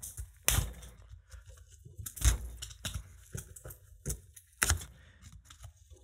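Small flat-blade screwdriver prying and scraping at the plastic bottom cover of a Klic Bluetooth smart padlock: about five sharp clicks and cracks of the tool against the plastic, with quieter scraping between them.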